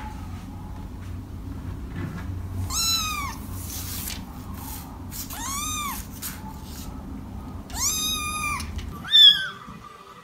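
Kittens meowing: three drawn-out meows, a couple of seconds apart, each rising and then falling in pitch. Near the end comes one shorter, higher and louder mew from a different kitten.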